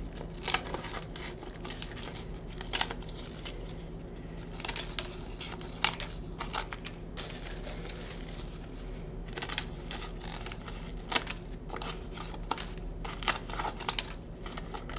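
Kitchen scissors snipping dried pollack skin into bite-size pieces over a stainless steel bowl: a run of irregular sharp snips, some in quick clusters.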